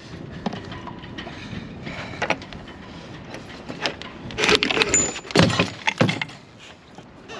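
Clunks, knocks and rattles of a heavy outboard motor being manhandled off a small fibreglass sailboat, mixed with footsteps on the deck. A cluster of loud knocks comes about four and a half to six seconds in, with a brief squeak among them.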